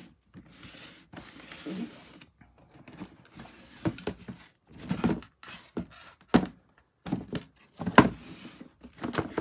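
Handling noise from a pair of sneakers being picked up and turned over on their cardboard shoebox: irregular soft knocks and scuffs, the loudest near the end.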